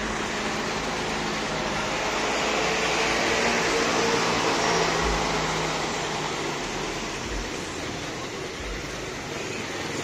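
Street traffic led by a passenger jeepney's diesel engine running as it passes close by, swelling to its loudest a few seconds in and then fading.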